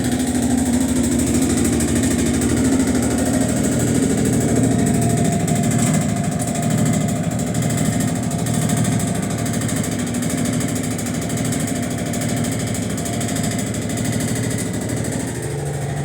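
Electrolux LTC10 washing machine running with a loud, steady mechanical rattle and hum, an abnormal noise that is later traced to a broken clamp.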